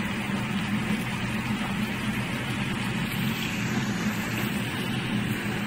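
Breaded fish fillets sizzling steadily as they shallow-fry in hot oil, still browning on the first side, over a steady low hum.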